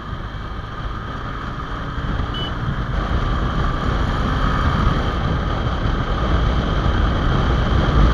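Honda Hornet 2.0 motorcycle with an aftermarket exhaust running under way, its engine and road rumble mixed with wind buffeting the rider's microphone; it gets louder about three seconds in.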